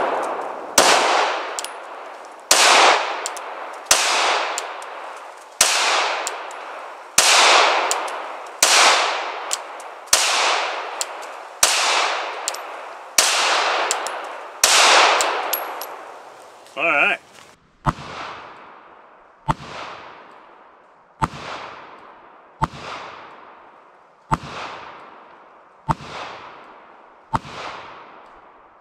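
Glock 19X 9mm pistol firing 124-grain reloads in slow, steady single shots about every second and a half, each shot echoing long. About two-thirds through there is a brief warbling tone, and then the shots go on at the same pace, quieter and sharper, heard from near the target.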